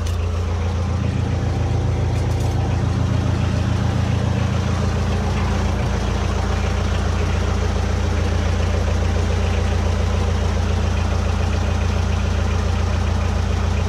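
A boat engine idling with a steady, even low hum.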